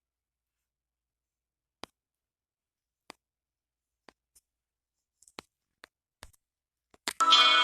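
Near silence broken by about six short, faint clicks at uneven intervals, then music with sung vocals starts suddenly near the end.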